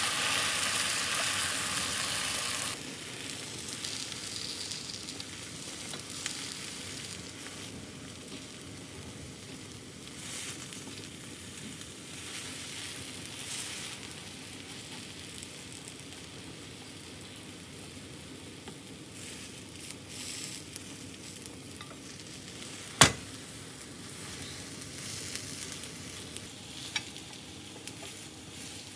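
Beaten egg poured into a hot, oiled square cast-iron tamagoyaki pan, sizzling loudly for about three seconds and then settling to a low steady sizzle while the omelette is rolled with chopsticks. A single sharp tap about 23 seconds in, and a smaller one near the end.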